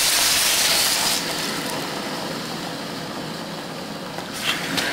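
Water added to hot oil in an electric wok: a loud sizzling hiss for about a second, then settling to a quieter steady sizzle. A couple of light knocks near the end.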